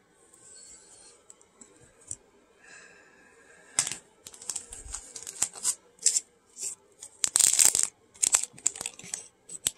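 A clear plastic card bag and a padded mailer being handled and crinkled while a trading card is pulled out. The first few seconds hold only faint handling. From about four seconds in comes a rapid run of sharp crinkles and rustles, with one longer tearing rip near the end.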